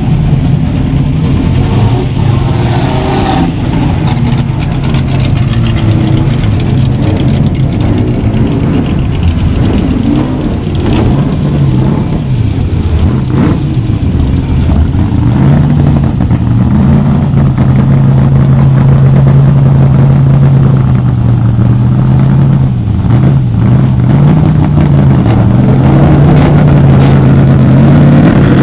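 1970s–80s racing car engines running loud and steady at idle, the revs dipping and picking up again a few times, with a sharp rising rev near the end.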